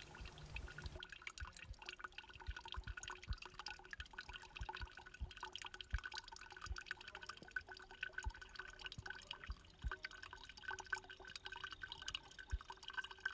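Water dripping in many small, irregular drops.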